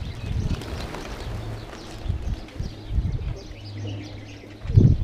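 A flock of pigeons cooing, with small birds chirping over them, and a low thump near the end.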